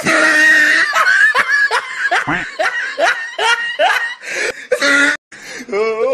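Laughter: a rapid, rhythmic run of short giggling bursts, about three to four a second, breaking off briefly about five seconds in.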